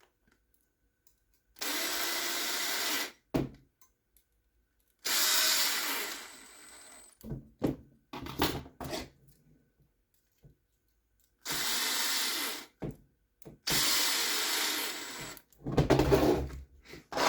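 Small power driver running four times, about a second and a half each, driving four small screws into a 3D-printed plastic part, with light clicks and knocks of handling between the runs.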